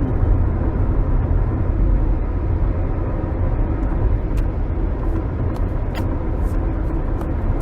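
Steady low rumble of road and engine noise inside a moving car's cabin, with two faint clicks about four and a half and six seconds in.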